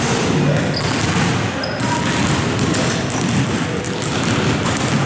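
Several basketballs being dribbled at once on a hardwood gym floor, a dense run of overlapping bounces.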